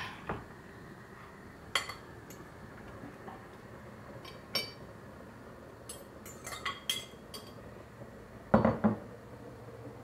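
Kitchenware clinking: a metal utensil tapping and scraping on a glass bowl and a china plate while salad is tipped out, in scattered clinks with a quick run of them past the middle, then two heavier knocks near the end.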